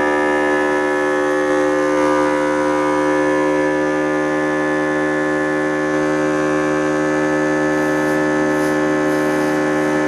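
Steady hum made of several unchanging tones layered together, like an electric machine running, with a few faint brief hisses near the end.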